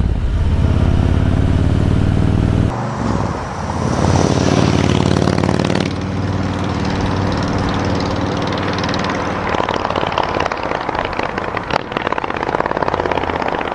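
Harley-Davidson Road King's Milwaukee-Eight V-twin, fitted with Vance & Hines True Dual headers and 4.5-inch Titan mufflers, running steadily while cruising at about 50 km/h. A few seconds in, the exhaust is heard from the roadside as the bike goes past and away, its note fading with distance.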